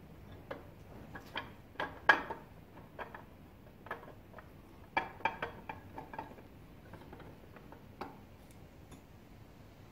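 Steel timing chain and cam sprocket clinking and rattling as they are handled and fitted onto the camshaft nose of a Chevrolet 350 small-block: scattered sharp metal clicks, the loudest about two seconds in and a cluster between five and six seconds.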